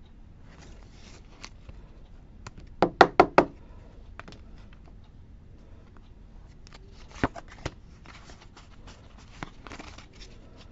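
Trading cards and a hard plastic toploader being handled on a playmat, with light rustling and clicks. About three seconds in comes a quick run of four sharp knocks, and a couple of lighter clicks follow a few seconds later.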